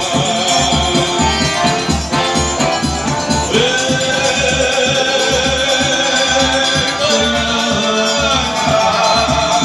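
Forró music in an instrumental passage: a steady bass beat with shaker-like percussion, and a long held melody note that comes in about three and a half seconds in.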